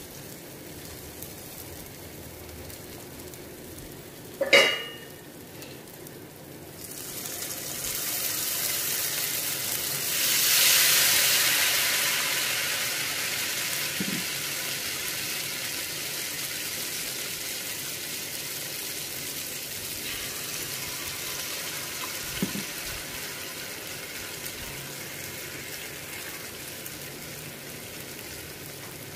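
Ghewar batter frying in hot ghee in a kadhai. One sharp tap comes about four seconds in. From about seven seconds in, the sizzle swells loud as batter is poured in, then settles into a steady frothy sizzle while the batter sets into its lacy net.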